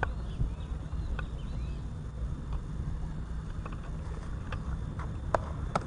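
A few light clicks and taps of fishing tackle being handled, over a steady low rumble.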